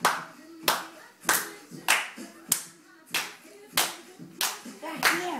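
Hands clapping a steady beat, one clap about every two-thirds of a second, with pop music playing from a TV underneath.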